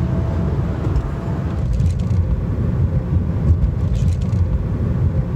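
Road noise inside a car at highway speed: a steady low rumble from the tyres on rough, patched asphalt, with a few brief clatters.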